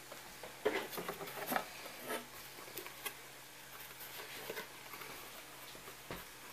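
Faint handling noises of a foam-board panel with Velcro dots being fitted against a 3D printer's frame: a quick run of small clicks and scratches in the first second and a half, then scattered taps and a soft knock near the end.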